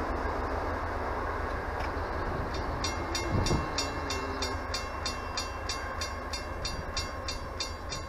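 Railroad grade-crossing bell ringing in steady even strikes, about two and a half a second, heard from about three seconds in while the crossing gates rise after the train has gone by. Under it, the low rumble of the departing Amtrak Downeaster train.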